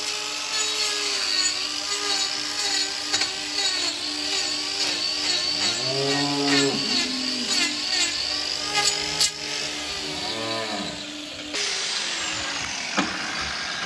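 Handheld power grinder with a hoof-trimming disc running against a cow's hoof, a steady whine. Its pitch sags and recovers twice as it bites into the horn. The whine stops abruptly near the end.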